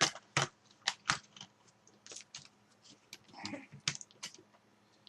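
Irregular sharp clicks and taps as a computer's system board is handled and slid into its case, its ports being lined up with their openings.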